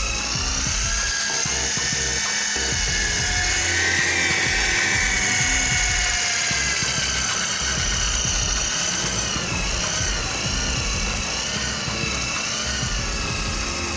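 Electric car polishing machine with a foam pad running on a painted car body: a steady high-pitched motor whine that wavers slowly in pitch, over a low rumble.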